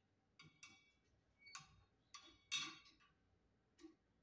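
Short metal clicks and scrapes of screws and fittings being worked by hand at the underside of a Harbor Breeze ceiling fan's motor housing. There are about six brief sounds, the loudest a little past halfway.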